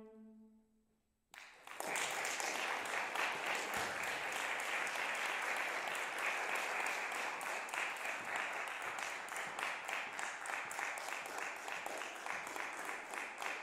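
The last bowed note of a solo viola fades away, and after a moment of silence an audience starts applauding, about a second in, and keeps clapping steadily.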